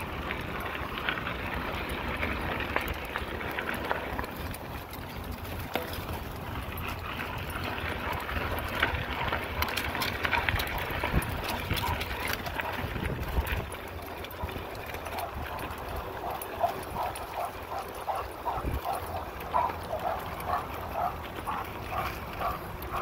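A bike rolling over a gravel and dirt path, with wind on the microphone and scattered clicks and rattles. In the last several seconds a German Shorthaired Pointer pants in an even rhythm, about three breaths a second.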